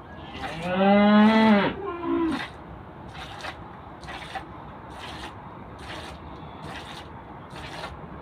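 A cow mooing once, a long call of about a second and a half, followed by a short weaker call. After it come soft swishing strokes at a steady rhythm, about one every 0.7 seconds.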